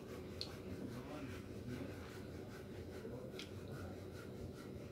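Quiet eating by hand: soft chewing and fingers picking rice and greens off a plate, with two short sharp clicks, one about half a second in and one at about three and a half seconds.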